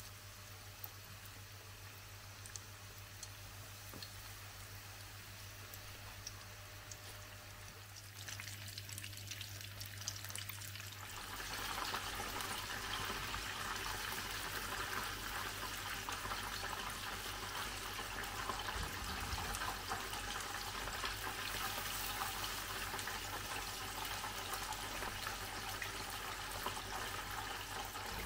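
Tempura-battered chicken deep-frying in a pot of hot oil: a steady crackling sizzle, faint at first and much louder from about eleven seconds in.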